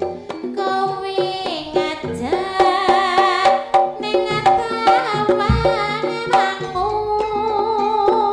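Live Javanese jaranan music: hand-drum strokes under a sustained melody line with a wavering pitch.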